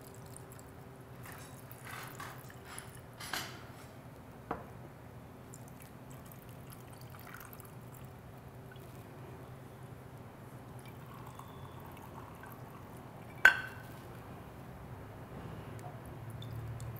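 Cocktail poured slowly from a glass beaker into rocks glasses, a soft trickle, with a few light glass clinks, the loudest and sharpest about thirteen seconds in. A steady low hum runs underneath.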